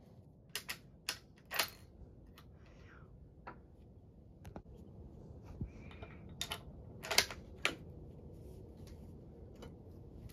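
Bolt of a single-shot Gras rifle being worked by hand between shots: a series of sharp metallic clicks and clacks, in two clusters near the start and about six to eight seconds in, the loudest clack near seven seconds.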